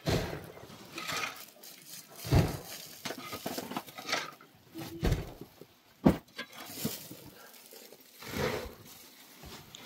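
Irregular knocks, thuds and clinks of objects being handled, the heaviest about two and a half, five and six seconds in.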